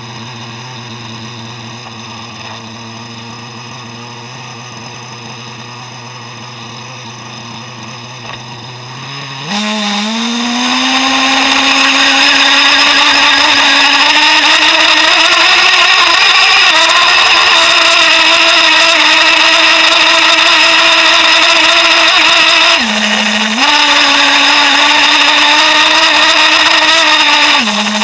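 Traxxas Jato nitro RC truck's small two-stroke glow engine, heard close up from on board: it idles steadily, then about a third of the way in revs up and runs at high speed with a rising whine as the truck drives off. Near the end the pitch dips briefly twice as the throttle eases off and comes back.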